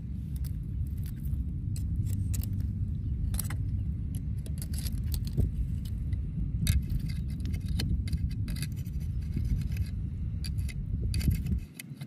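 Metal oyster pick tapping and scraping on rock-oyster shells, a scattered string of short sharp clicks, as oysters are pried open on the rock. Under it runs a steady low rumble that drops away near the end.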